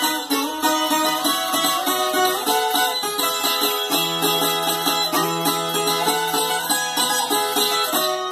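Viola caipira played solo: a continuous plucked melody of quick notes, with a low note ringing under it from about four seconds in until near seven seconds.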